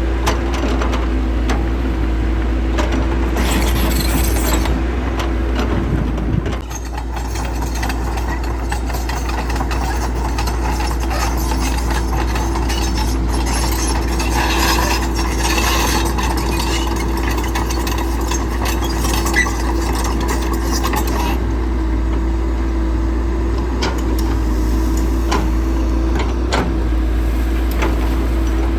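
Diesel engine of heavy construction machinery running steadily, with scattered rattles and clanks, and a brief drop in level about six and a half seconds in.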